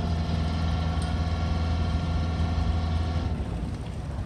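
Fishing boat's engine idling with a steady low hum. A higher-pitched steady whine sits over it and cuts off about three seconds in.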